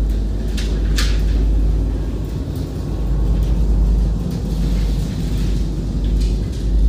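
Steel hoops of a rotisserie rolling over their floor rollers as a VW split-window bus body shell is turned by hand: a steady low rumble, with a couple of sharp metallic clicks about a second in and another near the end.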